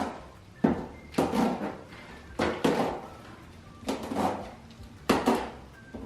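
Accessory boxes and loose parts being handled and set down: a series of sharp knocks and clatters, one or two every second or so.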